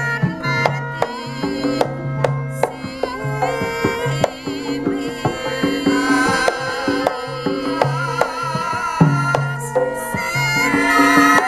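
Javanese gamelan music: quick kendang hand-drum strokes over steady ringing tones, with a wavering melody line above.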